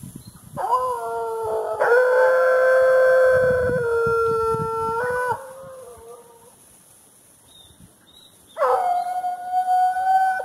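A dog howling: one long howl of about five seconds, then a second howl starting near the end.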